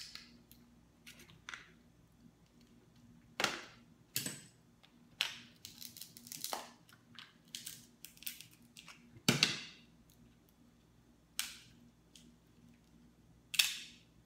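Cooked Dungeness crab shell cracking and snapping as it is broken apart by hand and with a metal crab cracker: a dozen or so irregular sharp cracks, the loudest about three and a half seconds in, about nine seconds in and near the end.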